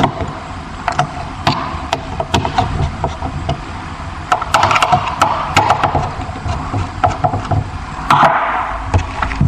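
Irregular clicks and knocks with two short bursts of scraping: a smoke-detector camera and its mounting screws being handled and fastened to a ceiling tile by hand.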